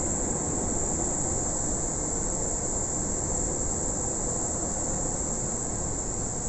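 Steady cabin ventilation noise inside a parked Boeing 777-200: an even rushing of air with a steady high hiss on top.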